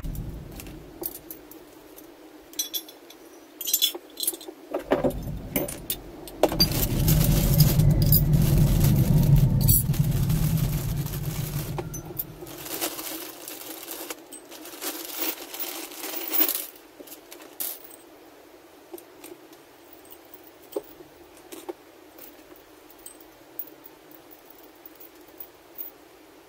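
Small metal carburettor parts clinking and jangling as they are handled and set down on a workbench. Near the middle comes several seconds of plastic bag crinkling over a low rumble, then only light, scattered clicks.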